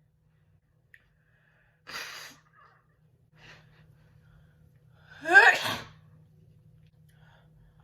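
A woman sneezing once, loudly and with her voice, about five seconds in, after a short breathy sound about two seconds in.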